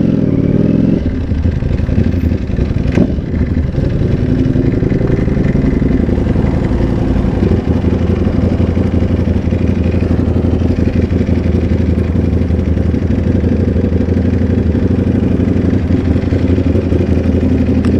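Sport motorcycle engine running loud and steady, its revs rising through the first second and then holding even.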